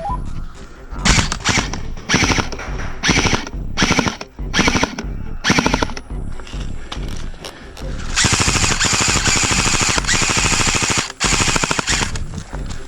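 Airsoft gun firing on full auto, the fast rattle of its shots coming in a string of short bursts, then one long burst of about three seconds near the end.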